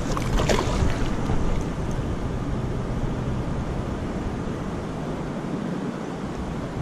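Wind buffeting the microphone over water lapping against the inflatable float tube, with a short sharp sweep about half a second in.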